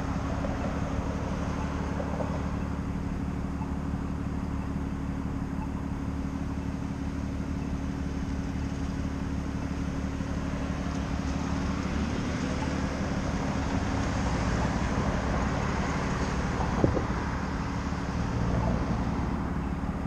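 Road traffic at an intersection: a steady hum of car engines and tyres, swelling for a few seconds in the middle as a car passes. Late on there is a single sharp click.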